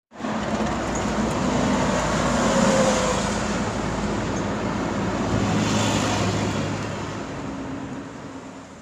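Steady motor-vehicle noise with a low hum, fading out over the last couple of seconds.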